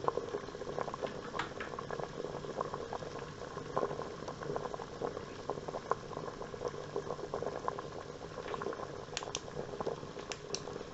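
Pan of rosehips in water boiling on the stove, bubbling steadily with many small irregular pops, the heat just turned down to bring it to a simmer.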